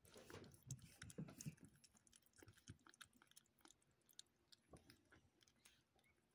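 Kitten eating wet cat food from a plastic bowl: faint, quick chewing with small wet clicks, busiest in the first second and a half.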